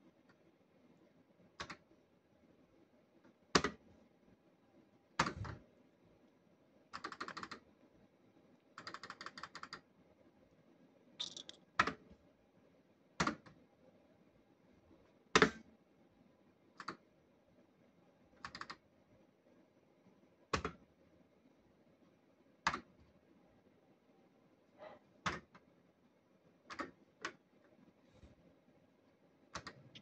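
Cops 'n' Robbers Safe Cracker fruit machine being played: sharp clicks and clunks of its buttons and reels every second or two, with a few short bursts of rapid electronic ticking.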